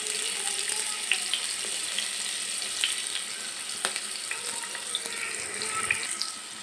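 Chopped onion and green chillies frying in hot oil in a non-stick pan: a steady sizzling hiss with scattered small crackles.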